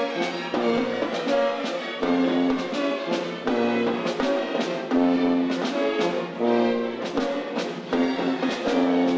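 Theatre orchestra playing lively ballet music with a strong, regular beat.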